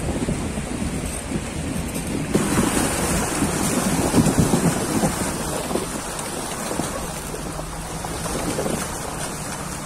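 Pickup truck wading through a flooded, muddy river channel: water rushing and splashing around the wheels over a heavy low rumble. The rushing hiss gets louder about two and a half seconds in.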